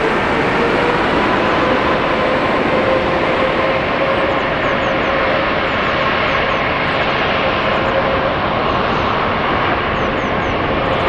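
Jet airliner engines running loud and steady: a dense roar with a whining tone that rises slightly in pitch over the first few seconds, then holds.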